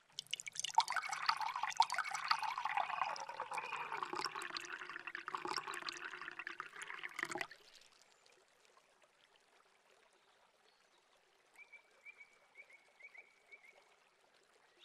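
Hot water poured from a porcelain teapot into a glass jar of dried herbs, a steady splashing pour that stops suddenly about seven and a half seconds in. Near the end come a few faint light clinks as the herbs are stirred in the jar.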